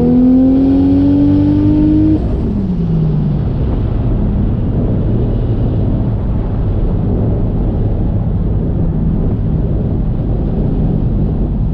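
Toyota 1JZ straight-six in a Fox-body Mustang accelerating, its note climbing in pitch, then the throttle lifts about two seconds in. The pitch falls away and the engine runs on steadily at lower revs while cruising.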